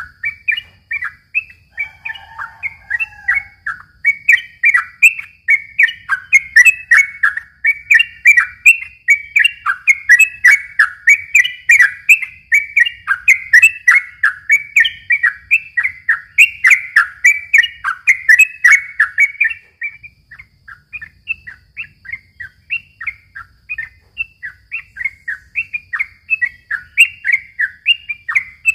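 Yellow-vented bulbul (trucukan) singing a long, rapid run of short chattering notes, several a second with hardly a break, softer for a few seconds past the middle.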